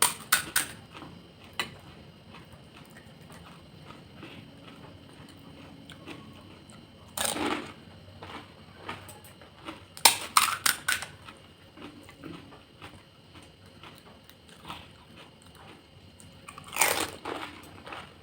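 Crisp fried fuchka (panipuri) shells cracking and crunching as they are bitten and chewed. There are four short bursts of crunching, with quieter chewing between.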